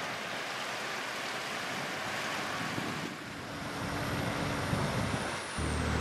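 Water churning and rushing in a workboat's propeller wash alongside its hull. Near the end a steady low diesel drone comes in suddenly.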